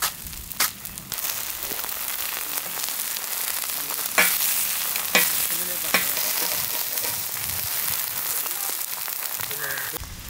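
Eggs frying on a hot iron griddle: a steady, dense sizzle that sets in about a second in, with a few sharp pops around the middle. A couple of sharp clicks come just before the sizzle starts.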